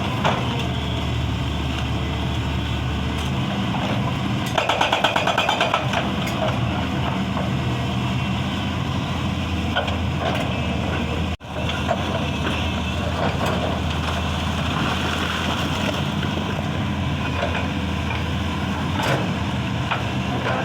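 Excavator diesel engine running steadily, with a short burst of rapid hammering from a hydraulic breaker about four to six seconds in. The sound drops out for an instant just past halfway.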